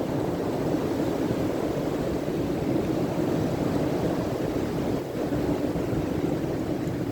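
Strong blizzard wind blowing steadily, with gusts buffeting the microphone in a low rumble.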